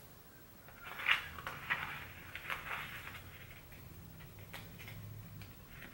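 Carbon fiber vinyl wrap sheet crinkling and crackling as it is handled and peeled at one edge, busiest in the first few seconds, then a few light clicks.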